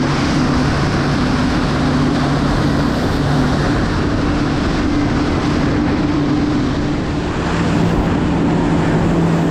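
Speed ferry running at speed: a steady engine drone under the loud rush of water spray along the hull and wind. The engine note steps slightly higher about seven and a half seconds in.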